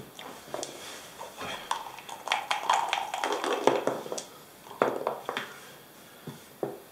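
Dice rattled in a backgammon dice cup and thrown onto the board, a dense clatter of clicks in the middle of the stretch, followed by a few separate sharp clicks.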